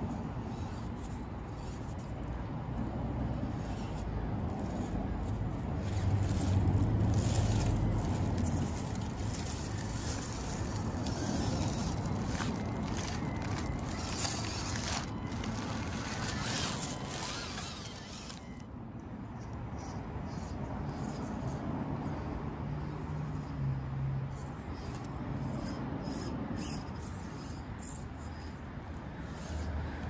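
Axial SCX24 1/24-scale micro RC crawler driving over rocks and dry leaves close by: its small electric drivetrain whirs while the tires crackle and scrape on leaves and stone. The crackling thins out and gets quieter after about 18 seconds.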